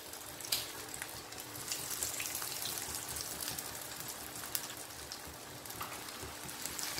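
Hot oil sizzling and crackling steadily as breadcrumb-coated chicken cutlets deep-fry in a pan, with many small pops through the hiss.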